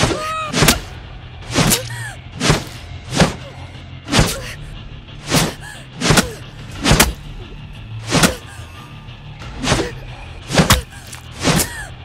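Fight sound effects: a series of about a dozen sharp hits and impacts, irregularly spaced, over a steady low music drone.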